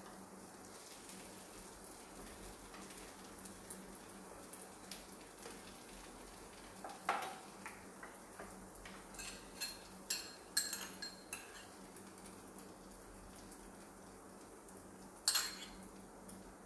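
Kitchen utensils (fork, wooden spatula and spoon) clinking and scraping against a frying pan, a plate and a small ceramic bowl over faint frying. The sharp knocks are scattered: one about seven seconds in, a quick cluster around ten seconds, and the loudest near the end.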